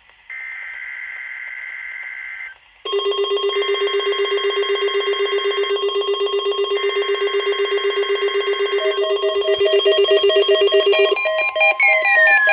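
NOAA Weather Radio test signal: three shrill, buzzing SAME digital header bursts, each about two seconds long. Overlapping them from about three seconds in is a loud electronic alert alarm beeping rapidly. Shortly before the end the alarm switches to a different, higher beeping pattern with falling tones.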